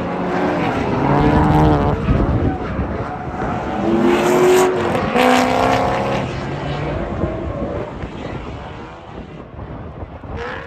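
Car engines revving, their pitch rising and falling in two loud swells, about a second in and again around four to six seconds in.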